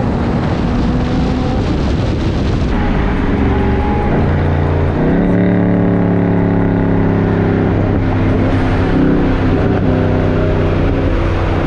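Car engine and exhaust running loudly at steady revs, with the engine note stepping to a new pitch a few times.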